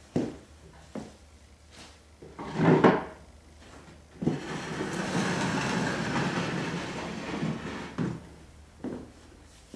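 A person moving about and handling objects: a few knocks and thuds, then a steady rustling, scraping noise for about four seconds, then two more knocks.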